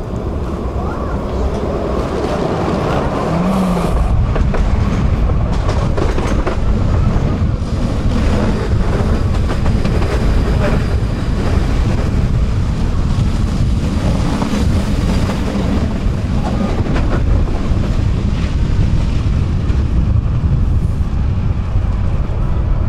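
A tram running on its rails: a steady rumble of wheels on track with scattered clicks, growing louder about four seconds in.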